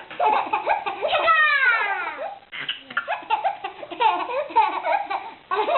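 A baby laughing in repeated bursts, mixed with another voice making playful sounds between the laughs.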